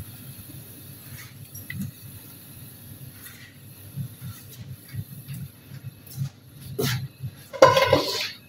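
Hot cooking oil sizzling and crackling in a shallow frying pan as fried bread pakoras are lifted out of it, with two short, louder sounds near the end.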